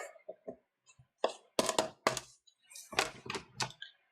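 Irregular sharp clicks and knocks of hands and a screwdriver working on a laptop's plastic underside: screws and the service cover being handled.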